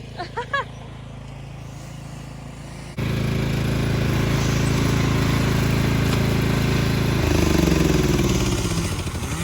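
An engine idles steadily. About three seconds in a louder engine sound cuts in abruptly, and its speed changes around seven seconds in.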